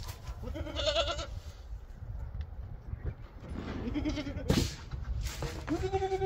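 Young goats bleating: a call about a second in, a lower one about four seconds in, and a longer, steady one near the end. A loud thud about four and a half seconds in as a rubber tire is dropped onto the stack of tires.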